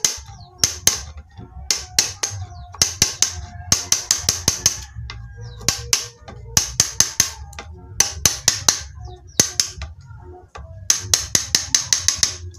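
Sharp taps of a hammer driving a steel chisel into the edge of a wooden slab, struck in quick runs of three to six blows with short pauses between.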